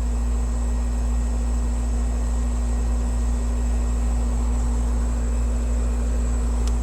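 Bryant R-410A air conditioner condensing unit running: steady hum of the compressor and condenser fan. It carries a slight noise that was first put down to the condenser fan motor, though the motor's normal current draw (1.22 A of a rated 1.4 A) suggests the noise comes from something else.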